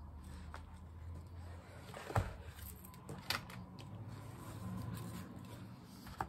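Handling noises as an altered-book art journal is turned around on a tabletop: a few light knocks and taps, the sharpest about two seconds in, over a low hum that stops after about a second and a half.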